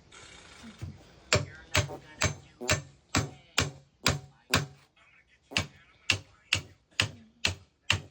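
Repeated hard blows struck at a locked box to break it open, about two a second, with a short pause about halfway.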